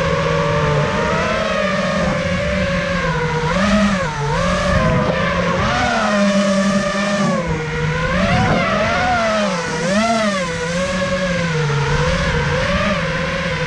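Electric motors and propellers of a 5-inch FPV freestyle quadcopter (T-Motor LF40 2450Kv motors, 5-inch props) whining in flight, the pitch swooping up and down again and again as the throttle is worked.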